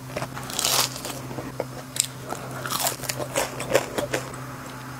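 Close-up crunching and chewing of crispy battered fried food, a quick irregular run of crackly crunches, over a faint steady low hum.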